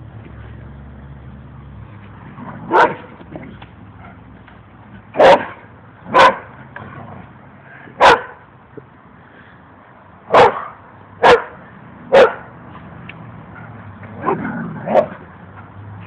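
Dog barking in play: about nine single sharp barks, a second or two apart.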